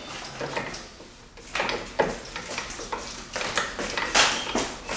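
Sharp metallic clicks and clinks, a handful spaced irregularly, from a roof crossbar's mounting foot and bracket being fitted and tightened with a small hand tool.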